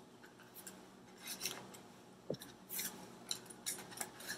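Rolled paper tubes scraping and rustling against cardboard as they are pushed into a cardboard tube, in several short scratchy bursts.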